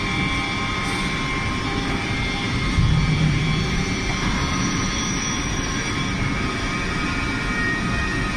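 CNC stretch bending machine running: a steady mechanical hum and whine, with a louder low rumble about three seconds in.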